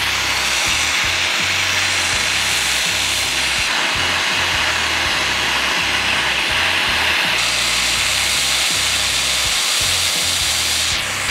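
Steady hiss of a single-ended hand-held gas torch flame playing on aluminum plate, heating the joint for brazing with an Alumaloy rod. Background music plays underneath.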